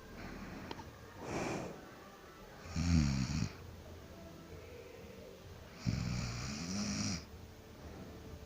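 A sleeping person snoring: two loud snores about three seconds apart, each lasting about a second, with a softer breath before the first.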